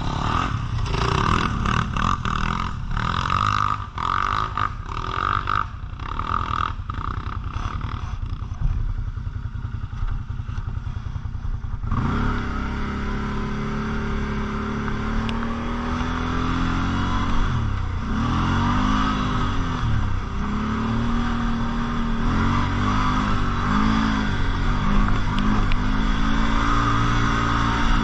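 Quad bike (ATV) engine running during off-road riding. For the first stretch many knocks and rattles sound over the engine. About twelve seconds in the sound changes abruptly to a clear engine note that rises and falls over and over with the throttle.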